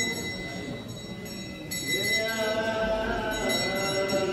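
Several voices singing a drawn-out, wavering mourning song, joining in about halfway through, over a steady high ringing tone.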